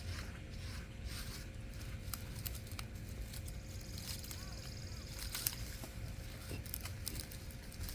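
Soft rustling, scraping and small knocks of soil and potatoes being dug out of a raised garden bed, over a low steady outdoor rumble.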